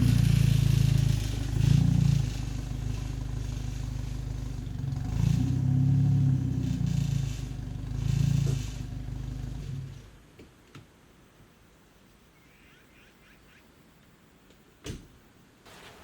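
Jeep Cherokee XJ engine running, its revs rising and falling several times, then stopping abruptly about ten seconds in. After that come a few small clicks and one sharp knock near the end.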